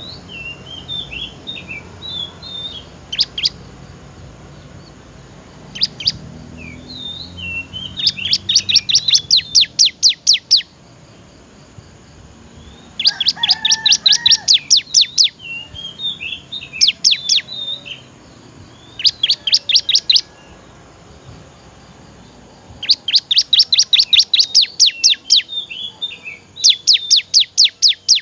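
Ciblek (a prinia) singing: soft twittering broken by loud runs of rapid, evenly repeated sharp chirps, about eight a second, each run lasting one to three seconds. There are six such runs.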